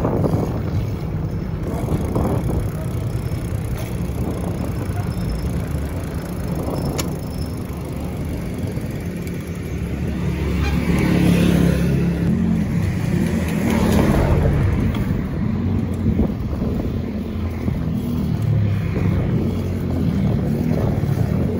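Wind rushing over the microphone of a camera on a moving bicycle, with a steady low rumble. It grows louder for a few seconds about halfway through.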